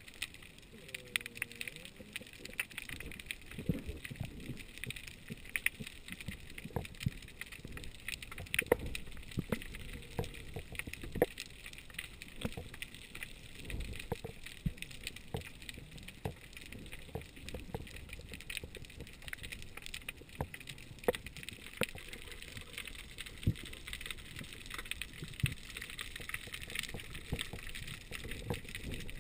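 Underwater sound picked up through a GoPro's waterproof housing: a steady muffled hiss with many sharp, irregular clicks and knocks.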